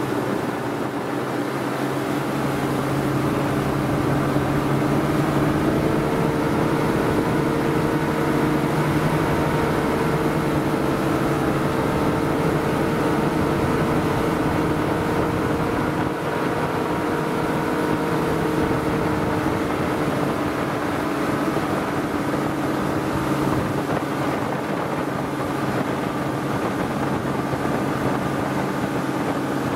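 Three Evinrude 300 two-stroke outboard motors running steadily at speed under heavy load, towing a long line of water skiers. A steady drone with wind rush on the microphone over it.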